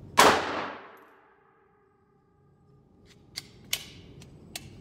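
A single shot from a Glock 42 .380 ACP pistol in an indoor range, ringing on for most of a second. Near the end come a few sharp metallic clicks as the pistol is handled, the gun having failed to feed its next round.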